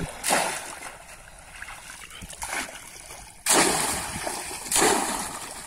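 Bamboo polo fish trap plunged down into shallow muddy water, making repeated splashes: three strong ones, the loudest about three and a half seconds in, each tailing off quickly.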